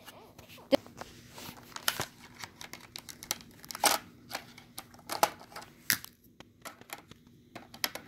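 Plastic smoke alarms being handled: scattered light clicks and rustles, with a few sharper clicks spread through.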